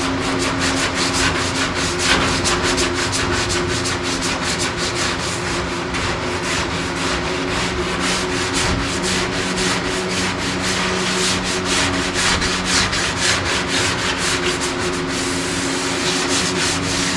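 Hand sanding the body of a 1969 Dodge Charger with sandpaper wrapped around a flexible sanding block, sanding down to 120 grit: quick back-and-forth rasping strokes that ease off about fifteen seconds in. The paper is wearing through filler and primer to bare metal in places.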